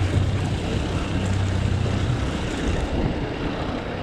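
Suzuki 150 four-stroke outboard motor running at low speed, a steady low hum that fades about two seconds in, under a wash of wind and water noise.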